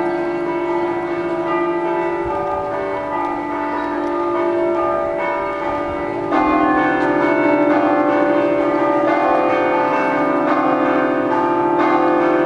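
Church bells of the Dardago bell tower played as grathade, a Friulian scampanottata in which the bells are struck by hand in rapid rhythmic patterns. Several bells ring together, and about halfway through the ringing gets louder as a lower bell joins in.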